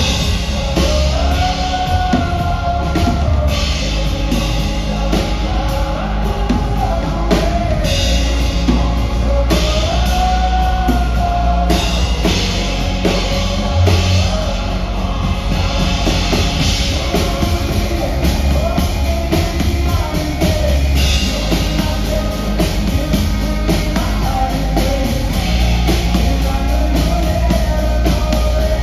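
Live band playing a rock-style instrumental passage: a full drum kit with bass under a wavering melodic lead line.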